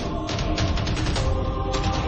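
Background soundtrack music with a fast, steady beat over held chords and heavy bass.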